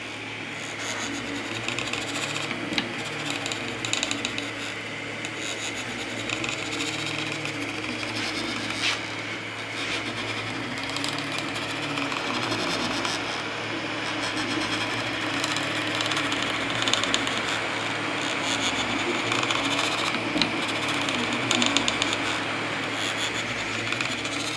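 3D printer printing: its stepper motors whine in low tones that shift every second or so as the print head moves, over a steady fan whirr, with a few faint clicks.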